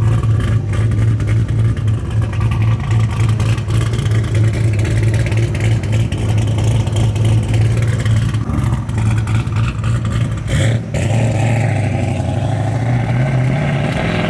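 Turbocharged V8 of a rear-mounted-turbo C6 Corvette Z06 running with a loud, choppy idle. A sharp short noise comes about ten and a half seconds in, and near the end the engine note rises in pitch as it revs.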